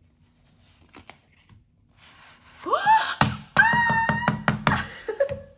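A woman's high-pitched excited squeal, rising and then held, with a quick run of sharp knocks beneath it, about six a second. A faint click of the album case being handled comes first.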